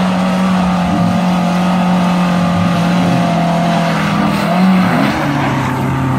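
Mitsubishi 4x4 SUV's engine held at high revs under load as it claws up a muddy, rutted slope, one steady engine note. About five seconds in, the note drops to a lower pitch.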